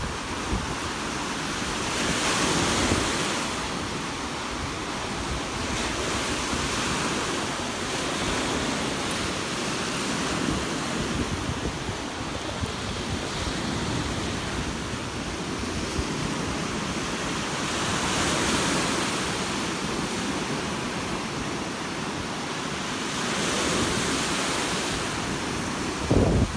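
Lake Erie waves breaking and washing up a sandy beach: a steady rush of surf that swells now and then as a wave comes in.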